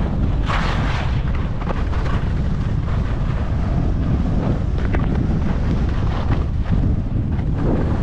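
Wind buffeting a GoPro's microphone during a fast ski descent, a steady low rumble, with the hiss and scrape of skis on packed, tracked snow swelling in short streaks at each turn.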